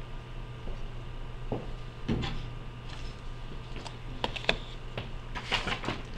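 Scattered light clicks and taps, a few to a second, over a steady low hum.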